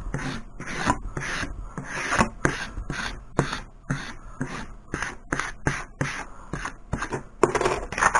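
A squeegee rubbed in quick back-and-forth strokes over clear transfer tape laid on a vinyl decal, about three scraping strokes a second, pressing out the trapped air.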